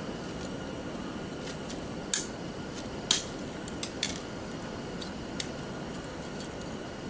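Scattered sharp metallic clinks and clicks of small relay parts and hand tools being handled, about five in all, the loudest about three seconds in, over a steady background noise.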